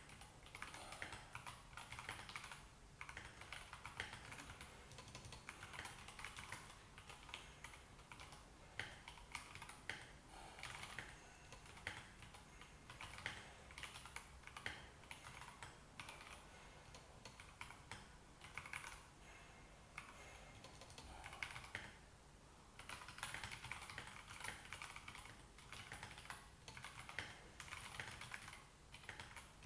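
Continuous typing on a Royal Kludge RK84 mechanical keyboard with stock Gateron Yellow linear switches and thick XDA-profile PBT keycaps. It is a steady run of rapid key clacks that thins to a short lull about two-thirds of the way through, then picks up again.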